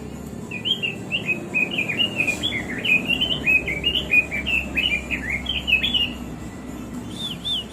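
Pekin robin (red-billed leiothrix) singing: a fast, jumbled warbling run of chirps for about five and a half seconds, then a short series of repeated clear, arched notes near the end.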